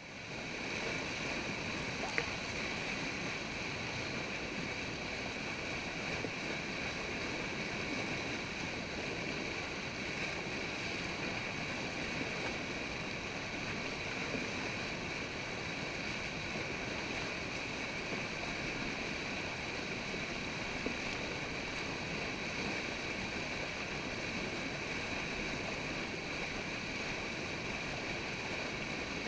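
Steady rush of turbulent whitewater spilling below a river lock and dam.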